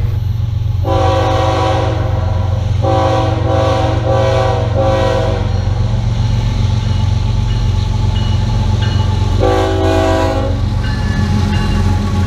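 BNSF diesel locomotive's air horn sounding a long chord, then a string of short blasts, then another blast near ten seconds in: a warning to maintenance-of-way workers on the track. Under it runs the steady low rumble of the passing train.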